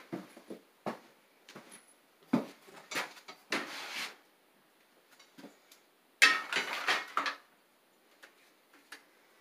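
Tools and hardware handled by hand: scattered clicks, knocks and clinks of hard objects, with the loudest rattling clatter about six seconds in.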